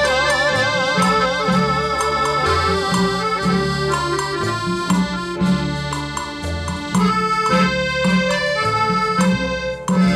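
Instrumental break of a Thai luk thung song: a band with a lead melody over a stepping bass line and a steady beat. A held, wavering note fades about a second and a half in, and the music dips briefly just before the end.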